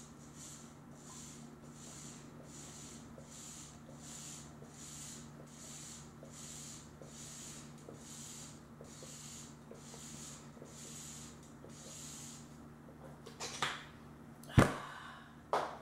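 A person drinking in steady, rhythmic gulps or sips, about three every two seconds, for about twelve seconds. Then come a few short, sharp sounds, the loudest about a second before the end.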